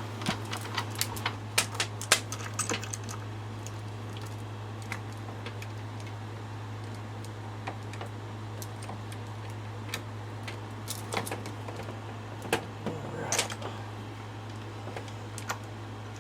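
Light metallic clicks and clinks of a chainsaw bar and chain being handled and fitted onto the saw, dense in the first few seconds and then scattered. A steady low hum runs underneath.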